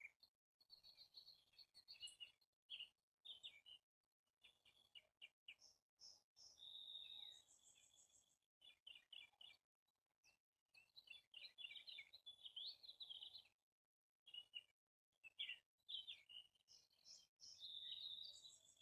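Faint birdsong: several birds chirping and singing in quick runs of short, high notes and trills, with brief pauses between phrases.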